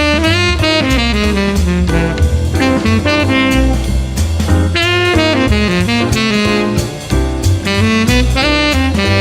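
Instrumental jazz: a horn melody over a bass line and drum kit, playing continuously.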